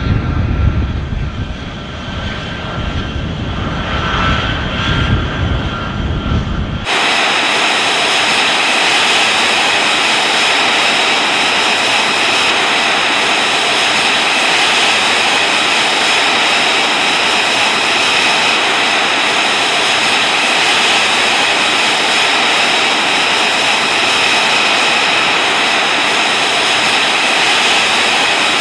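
A low rumble that cuts off abruptly about seven seconds in. It gives way to the steady high whine and hiss of an F-35B Lightning II's jet engine running on the ground.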